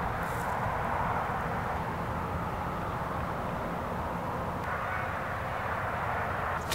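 Steady distant engine noise, a hum without a clear pitch that swells just after the start and again about two-thirds of the way through.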